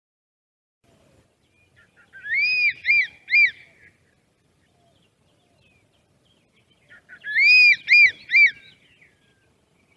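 A bird calling twice: each phrase is a long arched note followed by two short arched notes, loud and clear.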